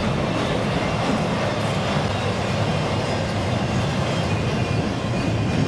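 Double-stack container well cars of a freight train rolling past close by, their steel wheels running steadily over the rails.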